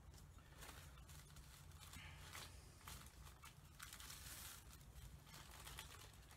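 Faint rustling and crinkling of a paper pattern piece being handled and smoothed over fabric, in several short bursts.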